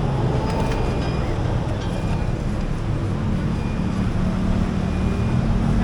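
Busy city street traffic: a steady rumble of engines and road noise. A low, even engine hum, like a vehicle idling close by, comes in about three seconds in.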